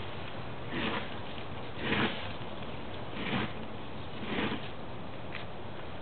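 Short sniffing breaths close to the microphone, about one a second, over a steady outdoor hiss.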